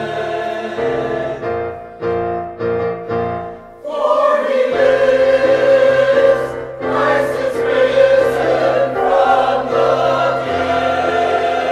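A choir singing sacred music: short, separated notes for the first few seconds, then fuller, louder held chords from about four seconds in.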